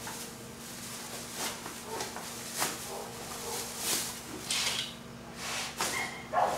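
Dry raffia being handled and pulled through to tie onto a fabric blind: a string of short rustles and swishes, the loudest about four and a half seconds in, over a faint steady hum.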